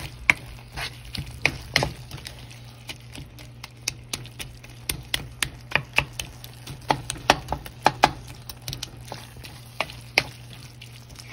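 Wooden spatula stirring and scraping chopped onions and tomatoes in a nonstick pan as they are sautéed down into a gravy base, with irregular clicks and taps of the wood against the pan. A steady low hum runs underneath.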